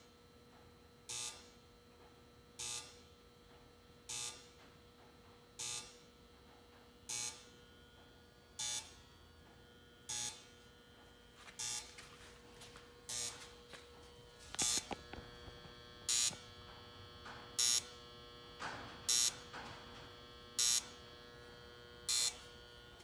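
Flash Technology FTB-324 xenon tower strobe firing about every second and a half, each flash a short, sharp buzz, over a steady low hum. Irregular rattling and clatter join in from about halfway through.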